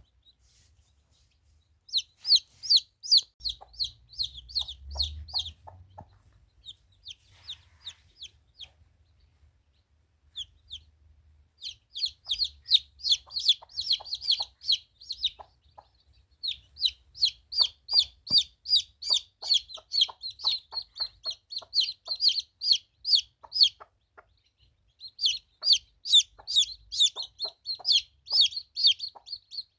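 Chickens calling: rapid runs of short, high-pitched calls, several a second, in bouts separated by brief pauses, with a few fainter, lower calls mixed in.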